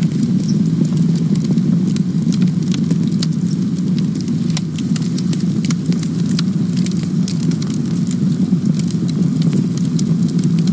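Campfire burning: a steady low rumble under frequent, irregular sharp crackles and pops from the burning wood.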